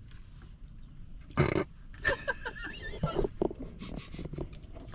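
A person burps once, short and loud, about a second and a half in, after a filling meal; faint quiet vocal sounds follow.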